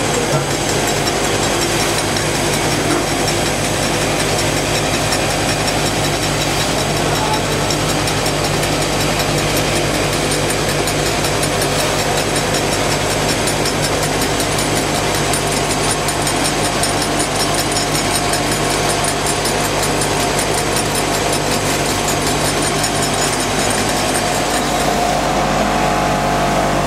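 Aluminium foil doctoring and rewinding machine running steadily: its AC variable-speed drive and rollers give a constant hum and whir as the foil web unwinds, is slit and rewinds onto cores.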